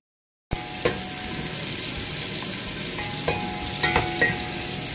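Sliced onions sizzling as they fry in oil in an aluminium pot, beginning about half a second in. A plastic slotted spatula stirs them, knocking and scraping against the pot a few times, and each knock rings briefly.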